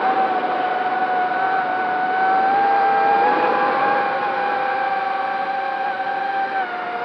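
FPV racing quadcopter's brushless motors and propellers whining steadily in flight. The pitch shifts slightly with throttle, easing down a little near the end.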